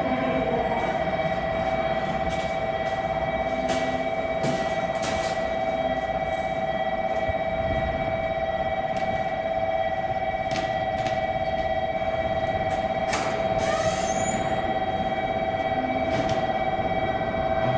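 Railway station platform ambience: a steady, fixed-pitch whine throughout, with scattered clacks and a low rumble from an electric commuter train moving on a far track.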